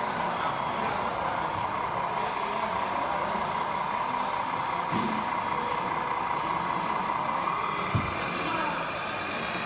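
Steady whine of radio-controlled hydraulic excavators' pumps as the scale machines dig. Two short knocks come about five and eight seconds in.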